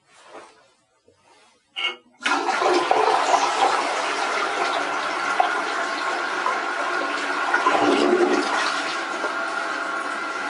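Toilet flushing: a few faint knocks and a short clunk, then about two seconds in the water rushes out loudly and keeps running as a steady gush through the bowl.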